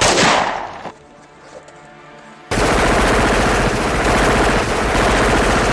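Gunfire sound effects from an amateur action film. A shot dies away in the first second, and about two and a half seconds in a sustained burst of rapid automatic fire starts and keeps going.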